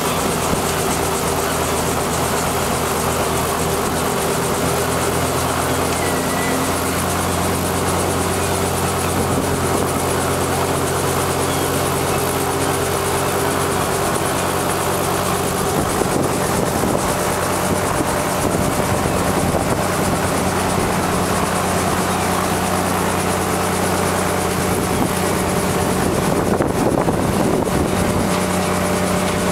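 Small helicopter running on the ground just after landing: a steady engine-and-rotor drone with several held low tones, which shift slightly about halfway through.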